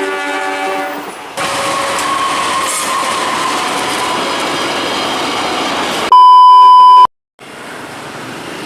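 The tail of a train's horn blast, the level-crossing warning signal, dropping a little in pitch as the train passes, then the train's wheels and cars rushing steadily past for about five seconds. About six seconds in, a loud steady electronic beep sounds for one second and cuts off, followed by a moment of silence and quieter background noise.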